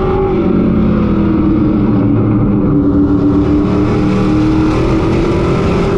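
Pro Truck race truck's engine at racing speed, heard from inside the cab. Its pitch sags as the driver eases off for a corner, then climbs again about halfway through as he gets back on the throttle.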